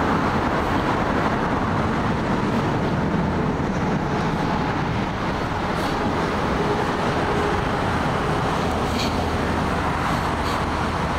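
Steady road traffic noise: vehicle engines and tyres on the road, heard as a continuous low rumble with no distinct event standing out.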